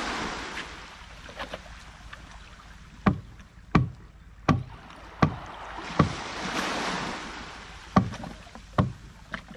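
A wooden boat being hauled up onto wooden rollers: a run of about seven sharp wooden knocks, spaced a little under a second apart at first, over a wash of water.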